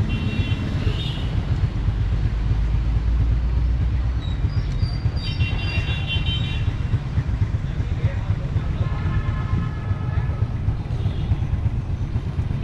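Steady low rumble of street traffic, with short vehicle horn toots sounding several times.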